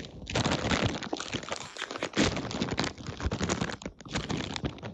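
Crinkling of a Doritos Dynamites foil chip bag handled and turned against the microphone: a dense run of crackles with two short lulls.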